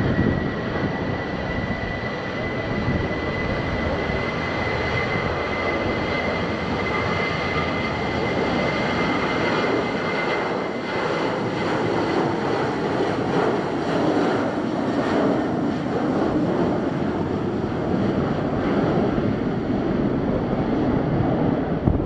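Boeing 737-800's CFM56-7B jet engines at takeoff thrust during the takeoff roll: a steady, loud jet rumble with a high whine that fades out about halfway through.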